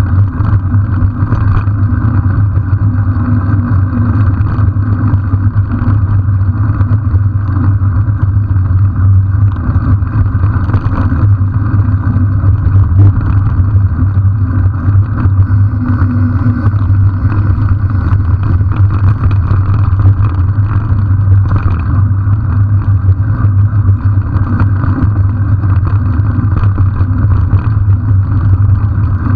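Steady, loud wind rumble on the microphone of a camera riding along with a mountain bike on a dirt track, mixed with tyre noise and a few small knocks from bumps.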